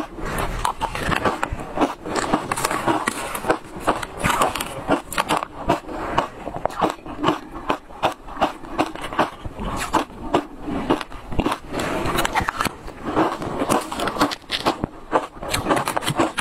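Crunching and chewing of matcha-powdered shaved ice, many sharp cracks a second as the ice is bitten and ground between the teeth.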